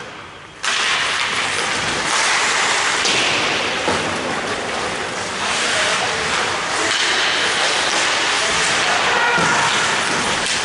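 Ice hockey play on a rink: skates scraping and cutting the ice, with sticks clattering against ice and puck. The steady scraping noise starts abruptly about half a second in, after a brief quieter moment at the faceoff.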